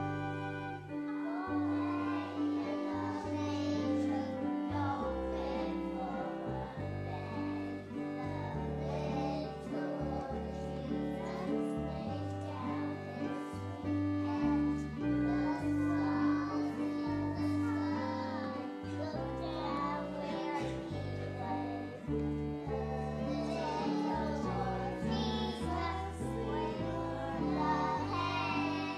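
A group of young children singing a song together over an instrumental accompaniment.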